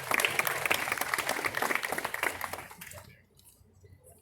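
Audience applauding a speaker's introduction. The clapping dies away about three seconds in.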